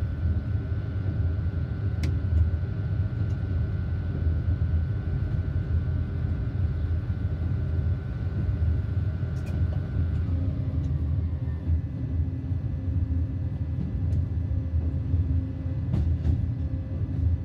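BB 27000 electric locomotive under way, heard from the cab: a steady low rumble of wheels and running gear, with a high steady whine that cuts out and gives way to other steady tones about ten seconds in, and a few sharp clicks.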